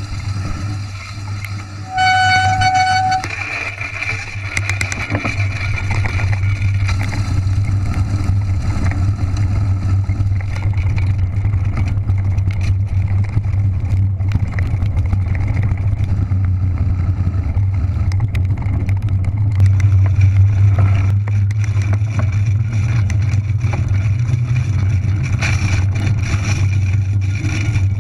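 Steady wind rumble on the camera's microphone and fat tyres rolling over a dirt track as a fatbike rides downhill. About two seconds in, a single held beep-like tone sounds for about a second.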